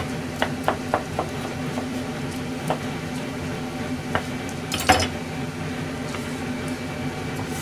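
Kitchen knife cutting and knocking on a plastic cutting board: a handful of scattered sharp knocks, the loudest about five seconds in, over a steady low hum.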